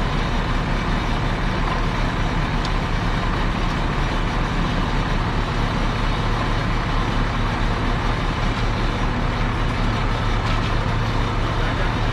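Large vehicle engine running steadily at an even speed, with a constant low hum.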